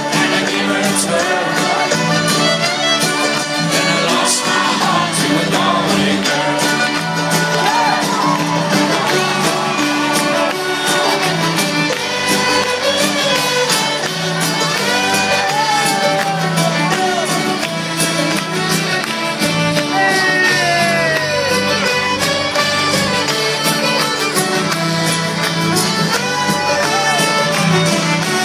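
Live folk-rock band playing an upbeat Irish folk song with fiddle, guitars and singing through a big outdoor PA, heard from within a large crowd whose voices mix in.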